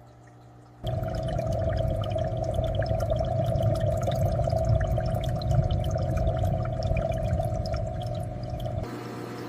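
Aquarium water pouring and bubbling, a steady rush with many small bubbly ticks over it. It starts suddenly about a second in and drops back to a quieter hum near the end.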